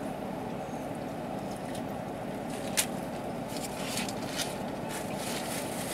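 Steady low hum of a parked car's running engine and ventilation, heard inside the cabin. A single sharp click comes about three seconds in, followed by a few fainter clicks and rustles.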